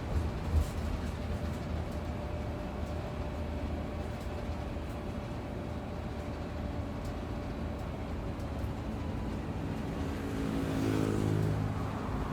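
Bus engine and road rumble heard from inside a moving bus, with a sharp knock about half a second in. Near the end the engine note comes up louder as it pulls.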